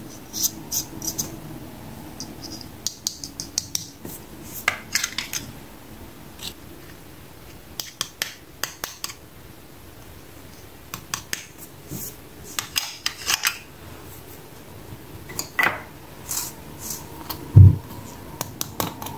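Small hard plastic toy pieces handled in the fingers, giving scattered light clicks and clacks in short clusters. Near the end there is a single louder dull thump.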